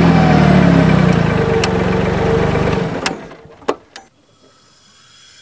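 Summit TX25 compact tractor's engine running, its pitch falling over the first two seconds, then cut off about three seconds in. A few sharp clicks follow once it is quiet.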